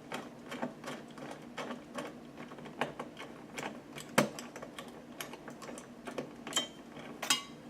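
Light, irregular clicks and taps of a CPU cooler and its mounting screws being lined up and fitted onto the motherboard's mounting bracket, with one sharper click about four seconds in.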